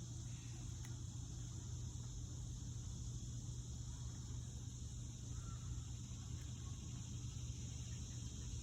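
Steady outdoor insect chorus, a continuous high buzzing, over a low steady hum.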